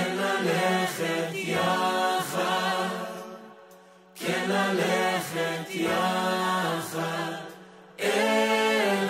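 A group of voices singing a song together, in three phrases that each fade away before the next one begins.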